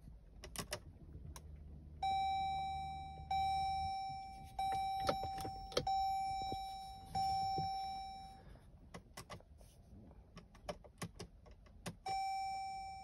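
Jeep Grand Cherokee dashboard warning chime: five evenly spaced bongs about 1.3 s apart, each a single pitched tone fading away, then one more near the end. Light clicks from the push-button start and key fob come before and between them.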